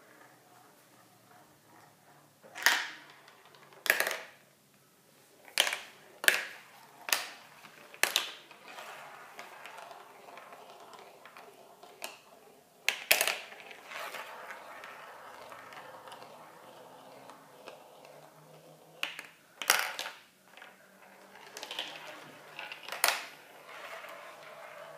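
Marbles rolling in a plastic marble run: a dozen or so sharp clacks at irregular intervals as they drop through tubes and strike the track pieces, with a softer rolling sound between as they circle the funnels.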